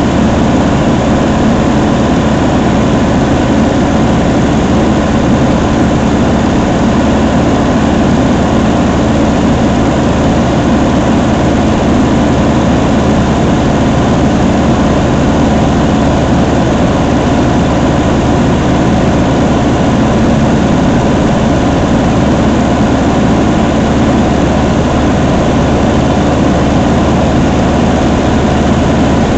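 Cabin noise of a Luscombe light airplane in flight: the piston engine and propeller drone steadily and loudly, unchanging throughout.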